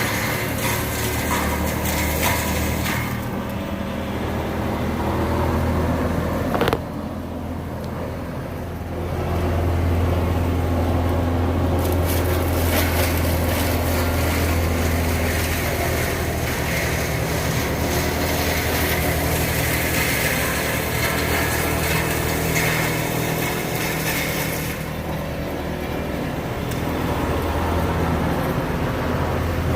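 Heavy diesel land-clearing machinery running steadily with a deep engine hum that rises and falls in level as it works, and one sharp knock about seven seconds in.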